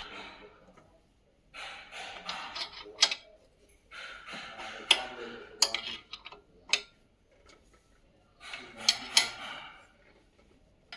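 A 14 mm spanner working the nut on the AC belt tensioner bearing: three spells of metal scraping and grinding as the nut is turned, with sharp metallic clicks as the spanner is repositioned.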